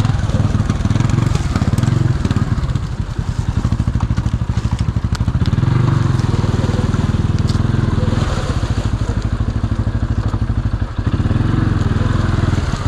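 CFMoto 500 engine running as the machine is ridden, a steady pulsing rumble that eases off briefly a few seconds in and again near the end.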